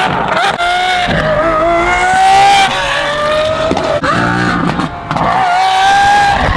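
Lamborghini Aventador SVJ's naturally aspirated V12, with a Gintani F1 exhaust, accelerating hard through the gears: the pitch climbs, drops sharply at each shift and climbs again several times. Brief sharp crackles come from the exhaust near the start.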